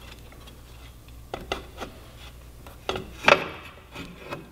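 Rear brake caliper and wheel parts of a motorcycle being worked loose by hand: a few light knocks, then a rubbing scrape about three seconds in, the loudest sound.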